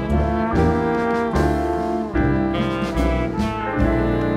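Jazz ensemble playing live: trumpets, trombone and saxophones holding chords that change every second or so, over piano and low bass notes.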